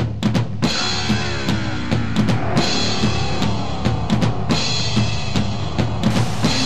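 Electronic music track programmed in Fruity Loops: a steady drum-kit beat with bass drum, snare and cymbals over a low bass line. About a second in it is joined by a hissing cymbal wash and sliding tones that fall in pitch.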